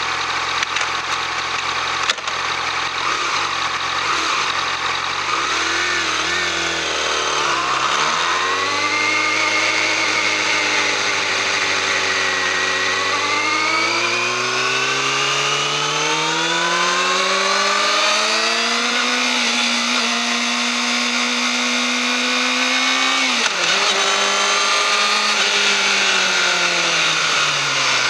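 Yamaha YZF-R6's 600 cc inline-four running through its stock exhaust. It is low and uneven at first, then its pitch climbs slowly and steadily over about ten seconds and holds high for a few seconds. Near the end the pitch drops sharply and eases back down.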